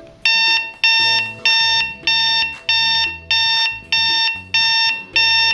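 Travelwey LED digital alarm clock's alarm going off about a quarter second in: a very loud electronic beep, repeated evenly about one and a half times a second.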